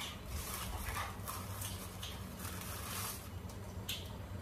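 Faint soft rustles and light handling noises of kitchen things being moved, over a steady low hum.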